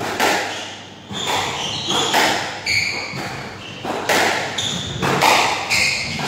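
Squash rally: rackets striking the ball and the ball smacking off the court walls, about one hit a second, echoing in the enclosed court, with short high shoe squeaks on the wooden floor between hits.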